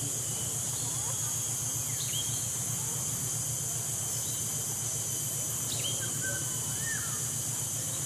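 Steady high-pitched insect drone with a low pulsing hum beneath it. Songbird notes break in about every three seconds, each a short whistle that drops then holds, with one rising-and-falling note a little past the middle.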